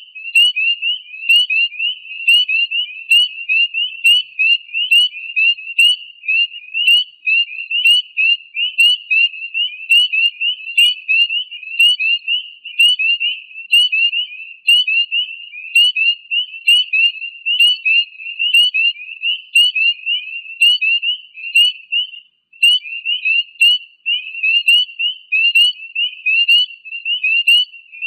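Breeding chorus of spring peepers: many males giving short, high peeps that each slide upward, several a second and overlapping without a break.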